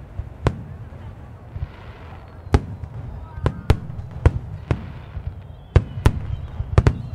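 Fireworks display: aerial shells bursting overhead in a dozen or so sharp bangs at irregular intervals, coming more often in the second half.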